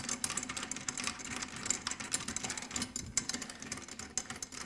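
Rapid, irregular metallic clicking and rattling of drum tension rods being spun by hand into their lugs through the hoop. The rods are only finger-tight, with no tension yet on the drum head.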